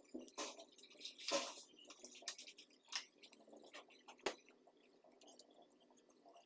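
Faint crinkling and clicking of a thin paper strip being rolled tightly between fingertips into a coil, with a few sharper crackles in the first two-thirds.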